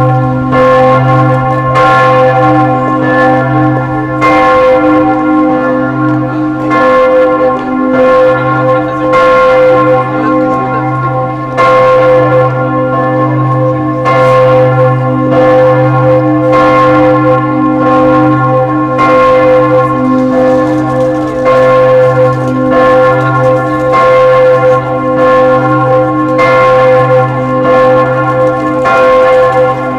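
Rouen Cathedral's church bells ringing the noon peal: several bells ring together, their strokes falling irregularly about once or twice a second over a sustained, overlapping hum of tones.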